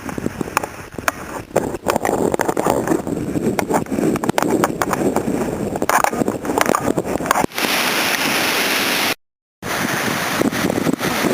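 Hurricane wind buffeting the camera microphone in rough, uneven gusts. It turns to a steadier hiss and then cuts out to silence for a moment late on, before the buffeting returns.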